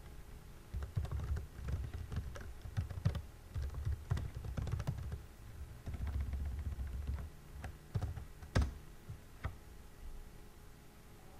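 Typing on a computer keyboard: a run of quick, uneven key clicks, with one louder keystroke later on.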